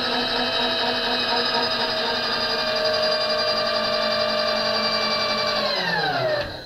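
A small electric motor on an RF-31 mill/drill runs with a steady whine while the table traverses. About six seconds in it is switched off, and its pitch slides down as it winds to a stop.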